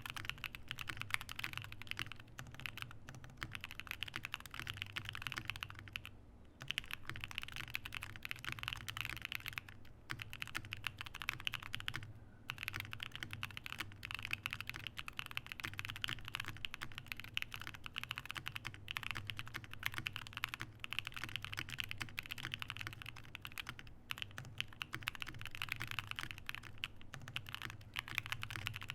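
Fast typing on a computer keyboard: a dense run of key clicks, broken by short pauses about six, ten and twelve seconds in, picked up close on an Audio-Technica AT2020 condenser microphone.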